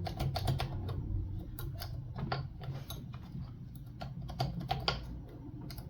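Irregular small metallic clicks of a Lishi HU64 2-in-1 pick working the wafers of a Mercedes-Benz HU64 door lock, as the picking is reset and begun again.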